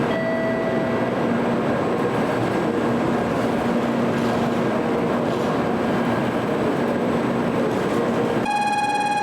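Tokaido Shinkansen train running at a station platform: a steady rushing noise with a low hum. Near the end a steady high tone with many overtones starts.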